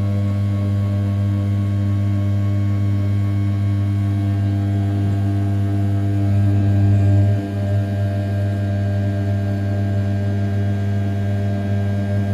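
A 500 W brushless spindle on an Original Mind RZ420 desktop CNC mill turning at 6000 rpm while its end mill cuts A7075 aluminium in a roughing pass around the outside of the part. It makes a steady, strongly pitched hum, with a brief dip in level about seven seconds in.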